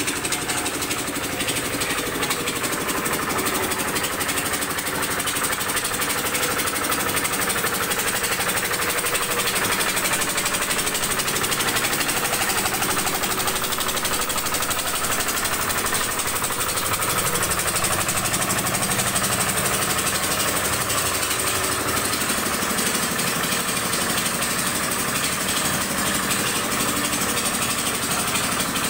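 Small vibratory baby roller running steadily with its drum vibrating, a dense, rapid rattle, as it compacts and levels paving blocks.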